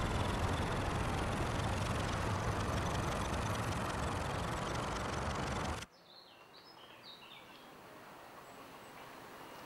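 Loud, dense rushing noise of a crowd on the move, recorded on a handheld camera carried at a run, cutting off suddenly about six seconds in. After the cut, a quiet background with a few faint bird chirps.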